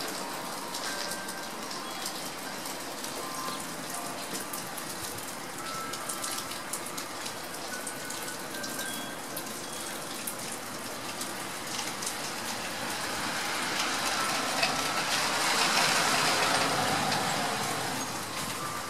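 Steady rain falling and dripping on a wet porch and yard, with many small drop ticks. A louder swell of hiss builds a few seconds from the end and fades again.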